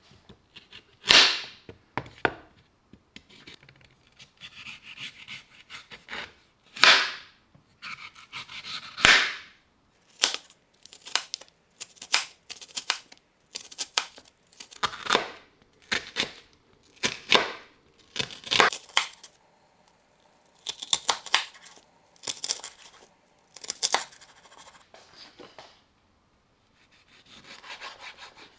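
A kitchen knife cutting through a raw carrot on a cutting board, each stroke a crisp cracking crunch. The first few cuts come seconds apart, then the knife runs through a quicker series of strokes as the carrot is cut into matchsticks. Softer rasping cuts follow near the end.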